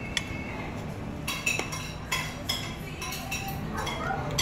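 A metal spoon and fork clinking and scraping against a ceramic plate and bowl during eating, with several sharp clinks over a steady low background hum.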